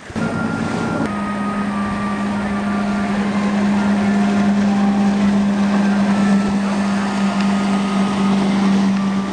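Cruise boat's engine droning at a steady pitch. It comes in abruptly and drops slightly in pitch about a second in.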